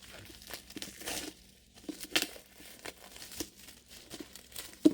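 Packaging being handled by hand: irregular crinkling and rustling, with a sharp tap near the end.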